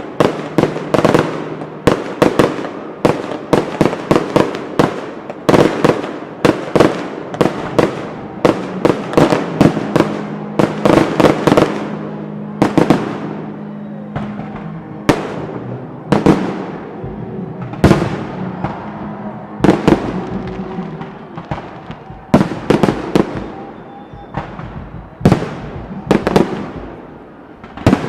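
Fireworks display: aerial shells bursting in rapid, overlapping volleys of sharp bangs, thinning out to separate bangs after about twelve seconds.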